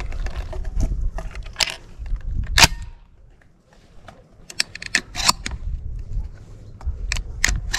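Shells being pushed one at a time into the tube magazine of a Baikal MP-155 semi-automatic shotgun: a series of sharp metallic clicks as each shell snaps past the magazine latch, the loudest a little before halfway through.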